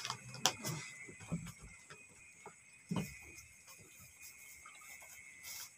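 Scattered knocks and rustling from hands handling fish while it is cleaned; the sharpest knocks come about half a second and three seconds in. Behind them runs a steady high-pitched whine.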